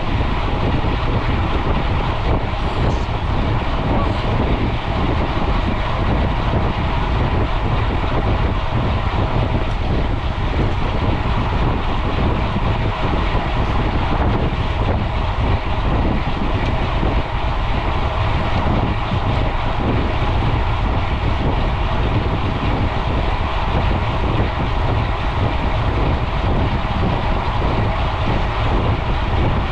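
Steady wind rush over an action camera's microphone, with the droning hum of tyres on pavement, from a mountain bike ridden fast on a road.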